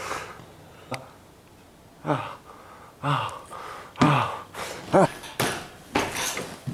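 A man's wordless, distressed vocal cries, about one a second, most falling in pitch. A sharp knock comes about a second in.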